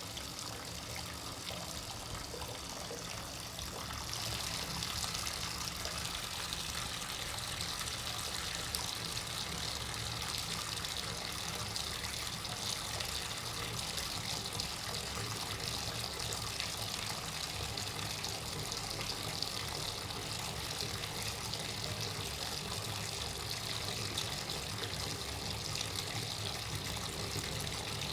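Bathtub faucet running, water pouring steadily into the tub. About four seconds in the flow gets louder and hissier, then runs on evenly.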